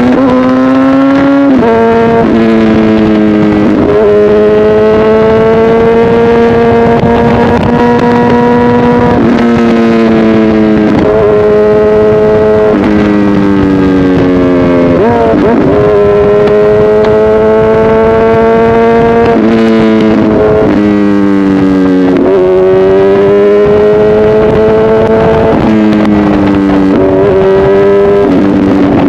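Honda CBR1000RR inline-four superbike running through an aftermarket SC-Project exhaust, ridden on the road. The engine note climbs slowly through each gear and drops sharply at each gear change, about ten times, with a few quick throttle blips.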